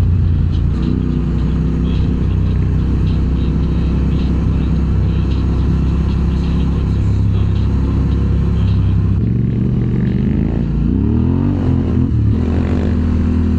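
Motorcycle engine running at a steady speed on the road. About nine seconds in the engine note changes, then climbs again near the end as the bike picks up speed.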